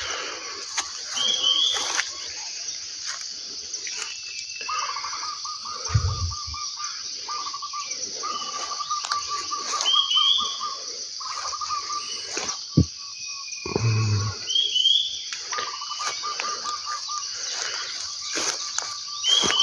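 Outdoor morning wildlife ambience: a steady high insect chorus, a rapid pulsed trill that runs in stretches of a few seconds with short gaps, and short rising bird chirps about four times. Footsteps and rustling through wet ground cover run underneath, with two dull thumps.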